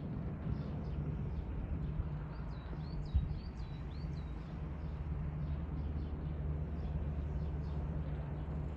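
A small bird chirping a quick run of high, sliding notes between about two and four seconds in, with fainter chirps scattered elsewhere, over a steady low mechanical hum. A single short low thump comes just after three seconds.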